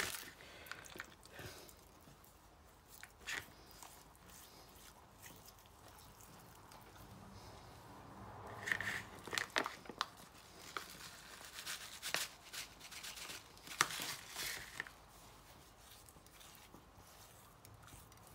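Hands rubbing spice seasoning into raw chicken thighs on a plate: faint wet rustling and crinkling with scattered small clicks and taps, busiest from about eight to fifteen seconds in.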